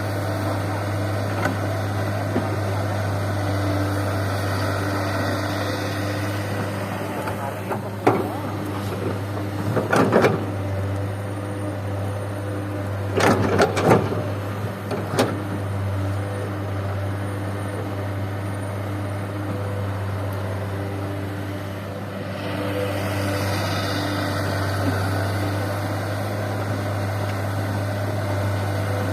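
Diesel engines of a Komatsu excavator and a Mitsubishi Fuso dump truck running steadily, with a low hum throughout. There are short bursts of clatter about eight, ten and thirteen to fifteen seconds in, as bucket loads of fill soil are dumped into the truck's bed.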